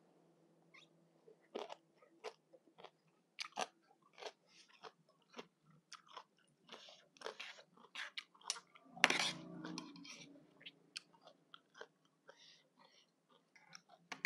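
Close-up chewing of spicy green papaya salad with rice noodles: many short, irregular crisp crunches and wet mouth clicks, picked up by a clip-on microphone on the eater's shirt. A louder, longer crunching burst comes about nine seconds in.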